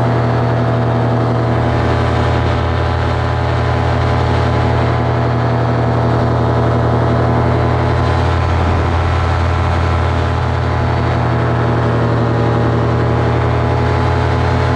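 Paramotor engine and propeller running steadily in flight, a loud, even drone with no change in throttle.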